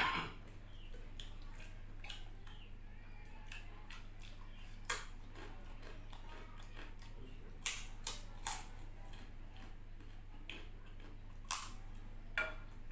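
Eating noises from a bowl of instant noodles: a few sharp clicks and clinks of a utensil against the dish, three in quick succession in the middle and two near the end, over a low steady hum.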